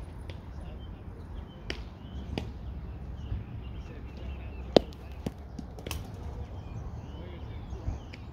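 Outdoor ambience with a low wind rumble on the microphone and faint bird chirps, broken by a few sharp knocks, the loudest a little before five seconds in.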